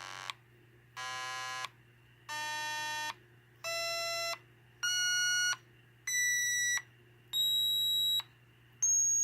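A 555-timer electronic organ on a breadboard plays about eight separate notes through its small speaker. They are buzzy square-wave tones, each about two-thirds of a second long, and each one is higher and a little louder than the last.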